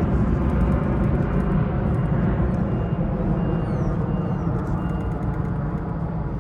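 Jet airliner's engines giving a deep, loud rumble that slowly fades as the aircraft moves away.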